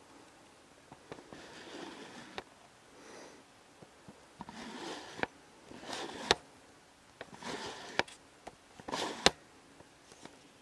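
Close handling noise: a handful of short rushing swells, like breaths or rustling, with sharp clicks and knocks between them, the loudest knock about nine seconds in.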